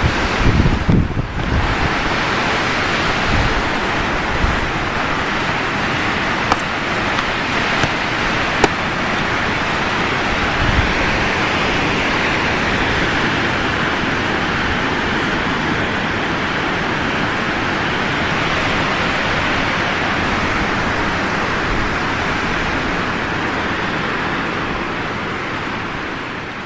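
Strong windstorm wind rushing steadily through trees, with gusts buffeting the microphone as a low, uneven rumble. A few faint sharp clicks come through it about halfway in.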